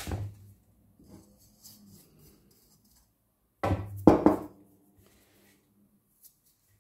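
Hands rubbing oiled fine semolina against a woven wooden platter: soft grainy rustling, then a louder brief scraping and knocking on the wood about four seconds in.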